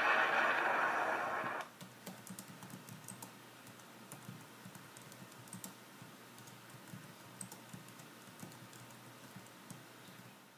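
A loud steady noise that cuts off abruptly about a second and a half in, followed by fingers typing on a laptop keyboard: faint, irregular key clicks.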